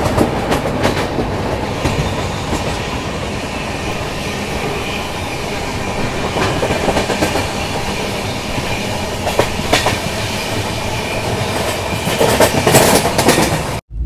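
Passenger train running at speed, heard from inside the coach: a steady rumble of wheels on rail with the clickety-clack of rail joints, and a run of louder clatter near the end. The sound cuts off abruptly just before the end.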